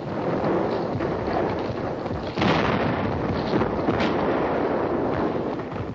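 Continuous rumbling battle noise of explosions and gunfire, with a sudden louder blast about two and a half seconds in and a sharp crack near four seconds.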